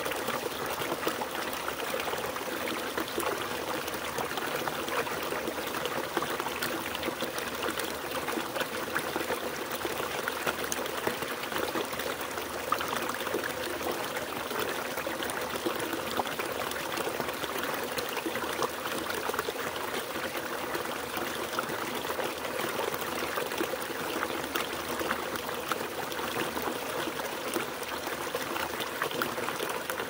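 A small waterfall, a narrow stream of water pouring into a shallow pool, splashing and bubbling steadily.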